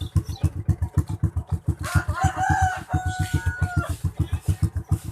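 Honda XRM 125's single-cylinder four-stroke engine idling through an aftermarket Daeng muffler pipe, with steady, rapid, even exhaust pulses. A rooster crows once, starting about two seconds in and lasting about two seconds.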